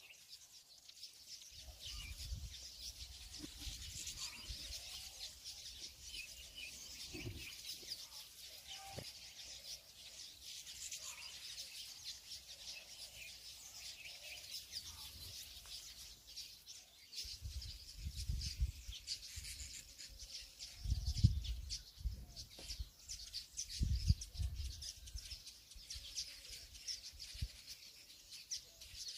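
Small birds chirping steadily in the background, with dull low knocks now and then from hands working the dough and cookie mould, the loudest cluster about two-thirds of the way in.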